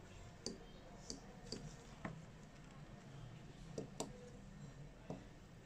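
Scattered small, sharp clicks and taps, about seven of them at uneven intervals, from tools and parts being handled during a Samsung Galaxy S8 charging-port replacement.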